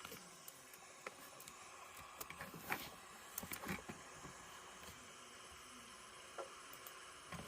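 Faint steady hiss with scattered small clicks and rustles, most of them between about two and four seconds in.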